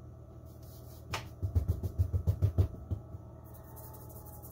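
A sharp tap, then a quick run of dull low thumps over about a second and a half, as a hand and a paper bag of flour work against a kitchen countertop to flour the work surface.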